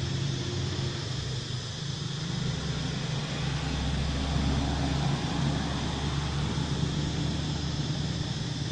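A steady low engine hum over a broad background hiss, growing louder for a couple of seconds near the middle.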